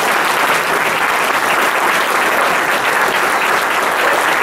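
Audience applauding steadily after a speech ends.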